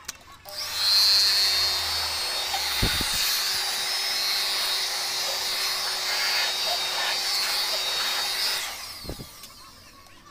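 Handheld electric blower running steadily with a high whine. It starts about half a second in and stops shortly before the end, with a low knock about three seconds in and another just after it stops.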